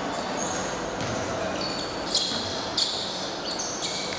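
A basketball being dribbled on a hardwood gym floor, with two louder bounces about two seconds in. Short high-pitched squeaks of sneakers on the court come in the second half.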